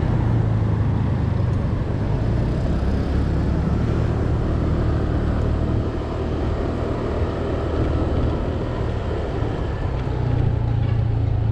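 Honda Click 125i scooter's single-cylinder engine running under way, with wind and road noise on the microphone. The engine note weakens from about halfway through and picks up again near the end.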